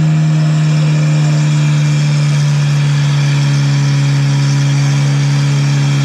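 Small pickup truck's engine held at steady high revs, one unchanging pitch with a slight sag near the end.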